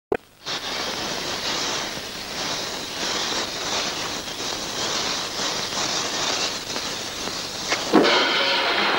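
Cartoon sound effect of a lit fuse hissing steadily as it burns down, ending in a short bang about eight seconds in. A mallet-percussion tune starts right after the bang.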